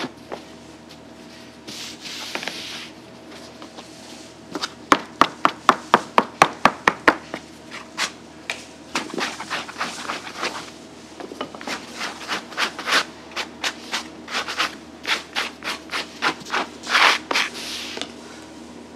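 Soft bread-stick dough being worked by gloved hands and a scraper on a floured worktable: rubbing and scraping, a fast run of about a dozen sharp taps about a third of the way in, then irregular pats and knocks.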